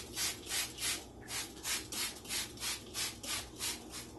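Scrubber rubbing back and forth over the stove top, a rhythmic scratchy scrubbing at about three strokes a second that stops near the end.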